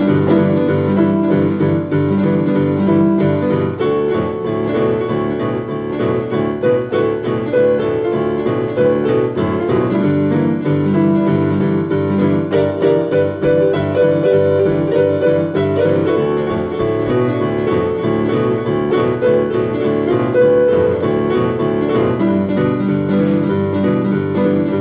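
Instrumental break in a country song, led by a piano playing the melody over the band's accompaniment, with no singing.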